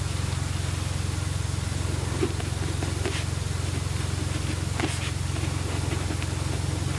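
A steady low rumbling hum with a fast fine pulse, with a few faint scratches of a pen writing on paper.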